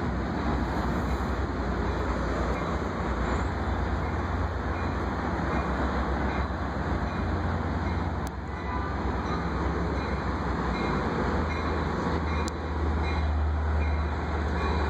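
Long Island Rail Road train approaching the station along the tracks: a steady low rumble that holds level, with no distinct horn or bell.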